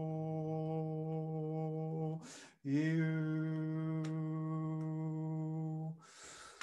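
A man's voice holding a long, steady low note on one pitch, as in meditative toning. It breaks off about two seconds in for a quick in-breath, then the same note comes back with a slight scoop up and is held until near the end, where another breath follows.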